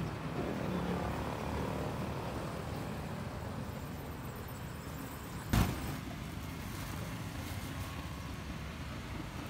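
Steady low outdoor rumble of background noise, with one sharp knock a little over halfway through.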